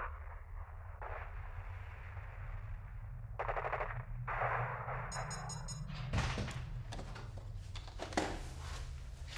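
Muffled, narrow-sounding archival film audio with two bursts of rapid gunfire about three and a half and four and a half seconds in. About six seconds in it gives way to a series of sharp knocks and clicks over a low steady hum.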